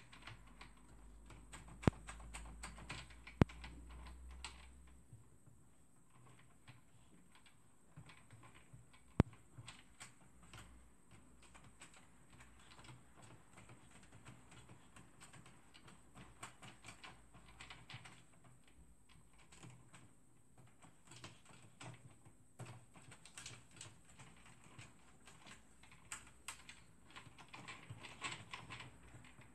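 Xerox 3370 fuser's gear train turned by hand, giving an irregular, loose clicking rattle with a few sharper clicks. The rattle is the sign of a damaged output shaft sleeve; the technician first takes it for a worn sleeve.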